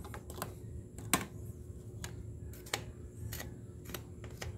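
Scattered light clicks and taps of a hand tool on a motorcycle engine's metal casing during cleaning, about one every half second to a second, the sharpest about a second in, over a faint low hum.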